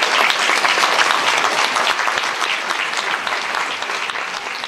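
Audience applauding in a banquet hall, the clapping slowly dying down.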